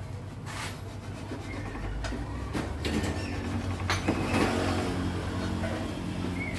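A few sharp metal clicks and knocks, with a stretch of scraping, as a metal rod or tool is worked against an aluminum engine crankcase, over a steady low hum.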